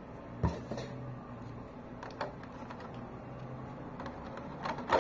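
A toy figure and its packaging being handled: a few short knocks and scrapes, the loudest about half a second in and near the end, over a faint low hum.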